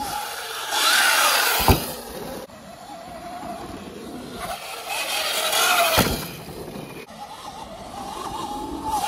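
Sur-Ron electric dirt bike's motor whining, rising and falling in pitch. It swells into a rush of wind noise off a jump and ends in a sharp thump on landing, twice, about four seconds apart, and the whine picks up again near the end.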